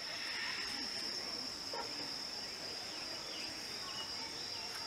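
Insects shrilling in a continuous, even, high-pitched trill.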